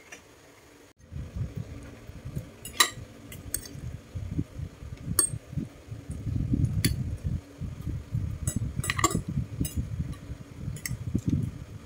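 Metal fork clinking and scraping against a plate of pancit noodles, with a handful of sharp clinks scattered from about two seconds in. Under them runs a low, uneven rumble.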